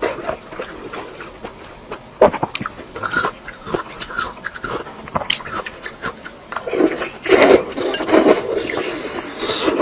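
Close-miked eating sounds: a person chewing, with irregular sharp mouth clicks that bunch up into a busier stretch about seven to nine seconds in.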